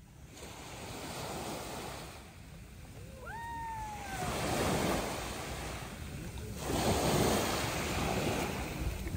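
Sea waves washing up the shore, swelling and ebbing in three surges. One short call rises and then falls about three seconds in.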